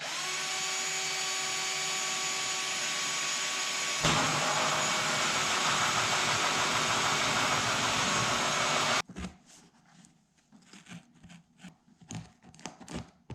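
Small electric power tool motor running steadily, likely cutting the hole for a dome light in the sleeper headliner panel. It gets louder and rougher about four seconds in as it bites into the panel, and stops suddenly about nine seconds in, followed by faint handling clicks.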